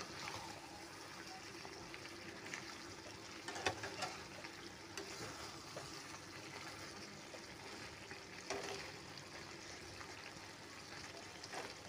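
Mutton and potato curry sizzling in a pan as a spatula stirs it, with a few sharp scrapes and knocks of the spatula against the pan, the loudest about three and a half seconds in.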